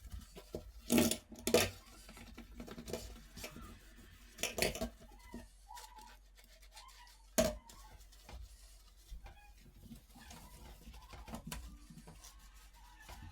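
Household objects knocking and clattering as they are handled and set down: two sharp knocks about a second in, a small cluster near the middle, and one more after about seven seconds.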